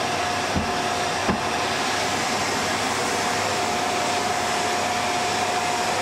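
Canister vacuum cleaner running steadily, a steady whine over its rushing air, as its floor nozzle is pushed over the floor. Two short knocks about half a second and just over a second in.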